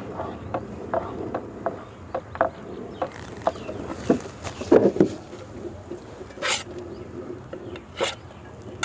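Flat-bladed knife cutting a thin rolled sheet of maida dough into diagonal strips on a wooden board, the blade knocking on the board in short, irregular taps, roughly two a second.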